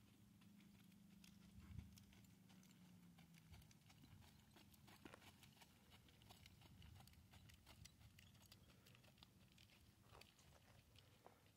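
Faint hoofbeats of a quarter horse moving across soft arena dirt: a scatter of soft thuds and small clicks, with a faint low hum in the first few seconds.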